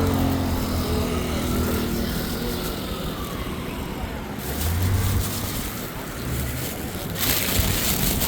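City street traffic: vehicle engines passing close by, with a short burst of hiss about seven seconds in.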